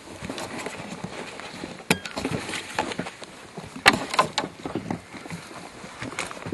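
Irregular rustling and crunching with scattered clicks, and two sharp knocks about 2 and 4 seconds in.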